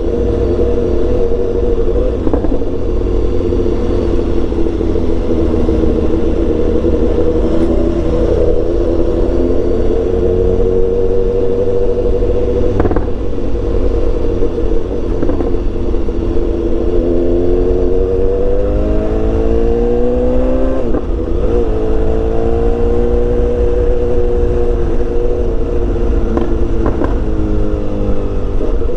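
BMW S1000XR inline-four engine with a full exhaust system, heard on board while riding at a steady speed, with heavy wind rumble on the microphone. Around two-thirds of the way through the engine note climbs as the bike accelerates, then drops sharply at a gear change and settles again.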